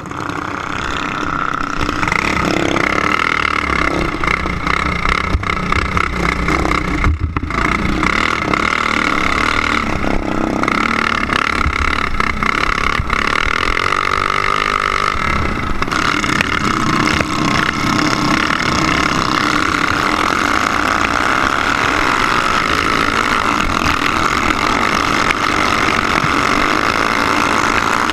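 Racing go-kart engine heard from onboard the kart, picking up as it pulls away from the start and then running at high revs in a steady high-pitched drone. The note dips briefly about seven seconds in.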